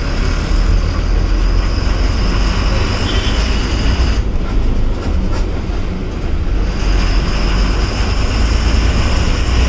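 Diesel bus engine and road noise heard from inside the driver's cabin while under way: a heavy, steady low rumble with a high whine on top that drops out about four seconds in and comes back near seven seconds in.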